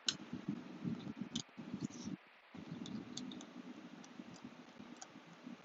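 Precision screwdriver turning a small, stiff screw out of a laptop's aluminium bottom case: faint scattered clicks of the bit and tool with low handling rubs, pausing briefly a little after two seconds.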